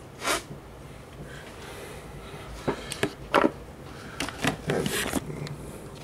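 Handling noise on a desk: a short breathy rush just after the start, then scattered sharp clicks and light knocks through the middle, as objects are moved about.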